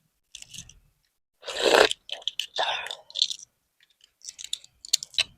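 Close-miked chewing of a boiled balut (fertilized chicken egg): wet mouth sounds in irregular bursts, loudest about two seconds in, with a few sharp clicks near the end.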